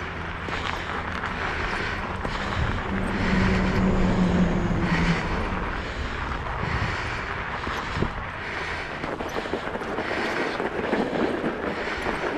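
Fat-tyred kick scooter rolling over packed snow, with a scraping crunch about every second and a half from the rider's kicks. A motor vehicle's engine hum swells and fades about three to five seconds in.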